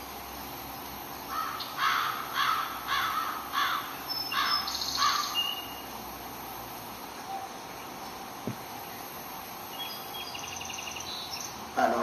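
A crow cawing about seven times in quick succession, with small birds chirping briefly in the middle and again near the end, over a steady background hiss.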